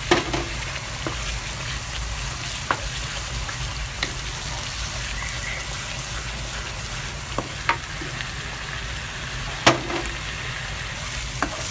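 Blended onion, garlic and ginger paste with chopped dried shrimp sizzling steadily in a wok as it is stir-fried with a wooden spoon, the spoon knocking against the pan now and then with sharp clicks.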